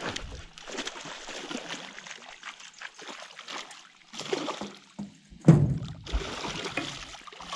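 A hooked snakehead thrashing at the water's surface beside the boat, with a run of irregular splashes and one loud splash about five and a half seconds in.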